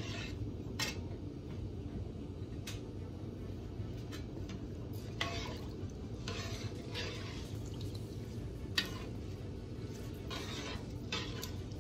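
Long metal spoon stirring rice and water in a large aluminium pot, the spoon clinking against the pot now and then and the water swishing, over a steady low hum.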